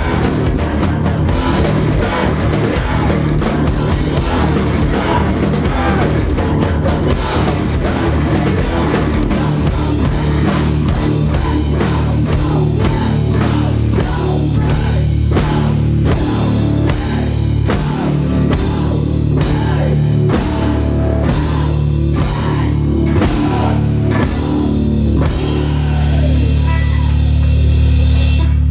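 A rock band playing live: guitar and bass over a driving drum kit with steady, regular hits. Near the end the drums drop out and the band holds one low chord, which then stops abruptly as the song ends.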